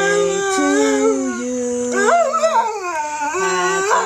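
Dog howling along with a tune in long, wavering notes that slide up and down, over steady held notes underneath.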